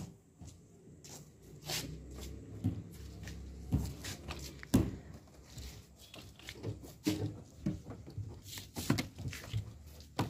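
A cloth and hands wiping down a car's body panels: irregular light knocks and thumps against the metal over a low rubbing noise, with two louder knocks near the middle.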